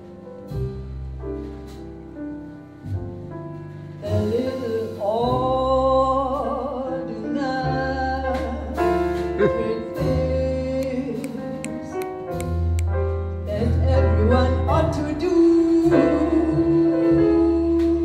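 Live jazz band playing a ballad: piano chords and double bass, and about four seconds in a woman's voice enters singing a melody with vibrato over piano, bass and drums, ending on a long held note.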